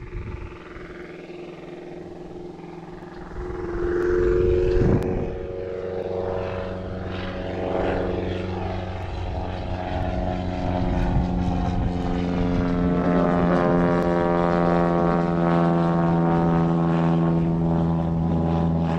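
Propeller-driven banner-tow plane approaching, its engine drone swelling about four seconds in and then holding steady and close.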